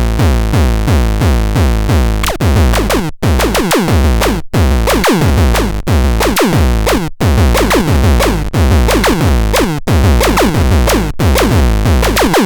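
Electronic music from a synthesizer and drum machine: a looping beat with falling synth sweeps, the pattern repeating about every 1.3 seconds.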